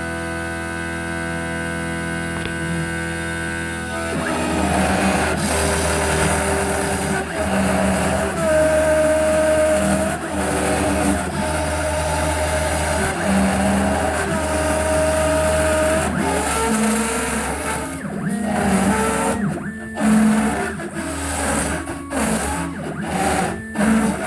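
CNC router spindle running at half power with a steady whine. About four seconds in, a 6 mm roughing bit starts cutting pine: rough cutting noise, with stepper-motor tones that rise and hold over and over as the axes make repeated passes.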